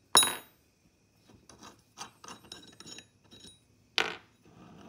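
Steel hex bolts and a steel chain sprocket being handled on a wooden bench. There is a sharp, ringing metal clink just after the start, small clicks and taps, and a louder knock about four seconds in as a bolt is set down.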